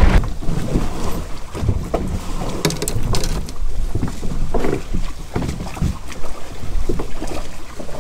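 Water sloshing and knocking against a plastic fishing kayak's hull, with irregular thumps and a few sharp clicks of handling on board.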